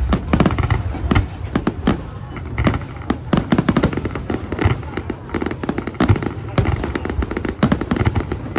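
Aerial fireworks display going off in rapid succession: many sharp bangs and crackles overlapping, over a low booming rumble.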